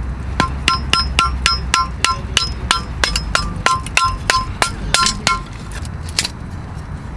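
Repeated sharp metal taps, about three a second for some five seconds, each ringing at the same pitch, then stopping.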